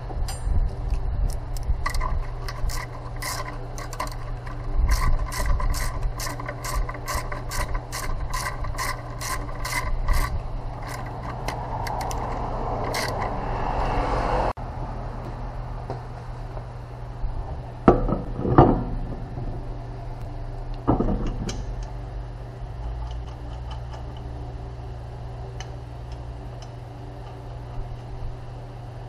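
Mechanical clicking, about three sharp clicks a second for the first ten seconds or so, then a few separate knocks later on, over a steady low hum.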